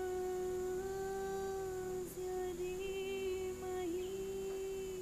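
Soft background music of long, held humming tones that barely change pitch, one note sustained for seconds at a time.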